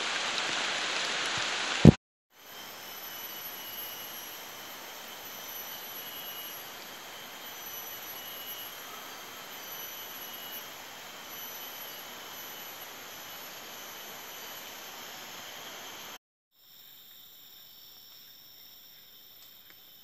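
Rain hissing for about two seconds, cut off with a sharp click; then a steady chorus of rainforest insects, several continuous high-pitched tones over a soft hiss. Near the end, after a second cut, a quieter insect chorus at different pitches.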